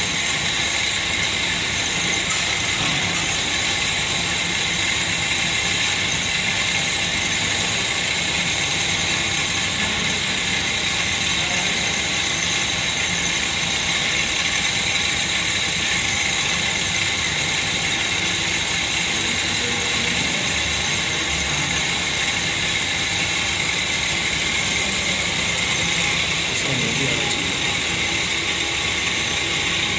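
Lathe running steadily while a single-point tool takes a facing cut across a large spinning metal disc: an even machining noise with a constant high-pitched ring.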